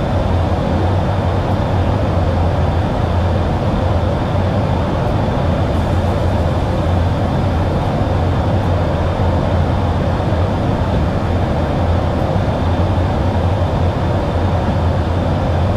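Steady drone of a tanker aircraft in flight during aerial refuelling: engine and airflow noise heard inside the aircraft, with a strong low hum and an even rushing noise above it.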